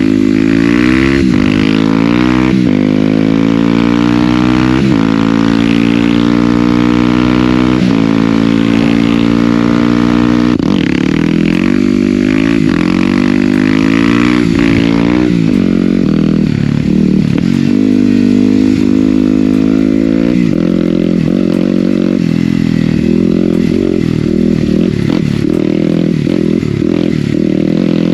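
Yamaha WR250R's single-cylinder 250 cc four-stroke engine running loud through a GPR exhaust with the baffles removed, on the move. The pitch climbs and drops back again and again as the bike is accelerated, with a longer steady high-revving stretch partway through.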